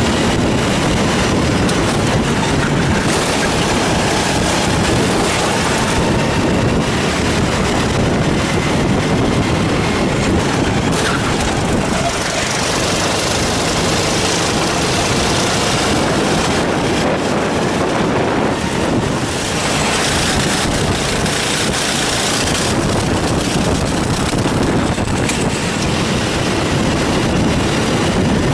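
Rental go-kart engine running hard at racing speed, heard from a camera mounted on the kart with a steady rush of noise over it; the level dips briefly twice.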